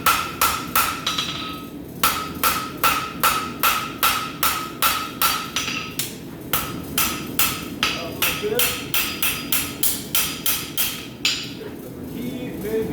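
Rounding hammer striking hot steel bar on an anvil, drawing it out, in a steady rhythm of about three blows a second, each blow with a short ring. The hammering pauses briefly twice and stops about a second before the end.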